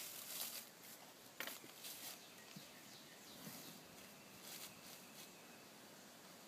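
Near silence: faint outdoor ambience with a few soft rustles and ticks.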